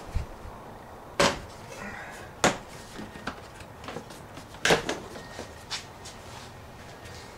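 Black plastic side panel of a 2002 Yamaha Grizzly 660 ATV being pulled off by hand. Its fasteners pop loose in three loud snaps, about a second, two and a half seconds and four and a half seconds in, with lighter clicks and plastic rattles between.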